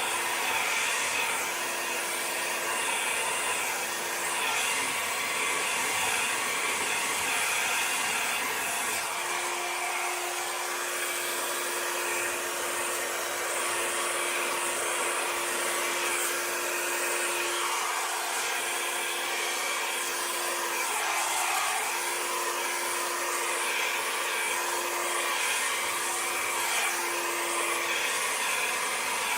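Handheld hair dryer blowing steadily over wet acrylic pour paint, a continuous rushing of air with a steady motor hum; the hum fades out for a few seconds about five seconds in, then returns.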